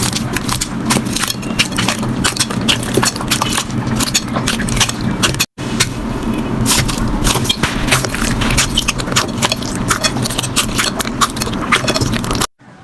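Slime being squeezed and pressed by hand, giving a dense, continuous crackle of small pops and clicks. The sound breaks off briefly about five and a half seconds in and resumes, and cuts out again just before the end.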